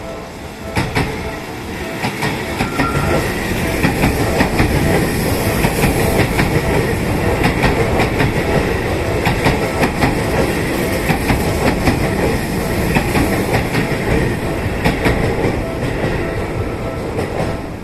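Seibu Shinjuku Line electric train passing a level crossing at close range: a steady rumble with a rapid run of wheel clicks over the rail joints, building about a second in and easing off near the end. The crossing's warning bell rings faintly at the start and again near the end.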